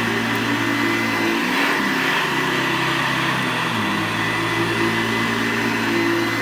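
Upright vacuum cleaner running steadily, with a high motor whine. Its drone dips in pitch briefly about a second and a half in and again near four seconds, then recovers.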